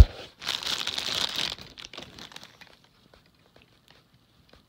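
A knock as the phone is handled, then about a second of crinkling, as of plastic or paper, followed by a few faint scattered taps.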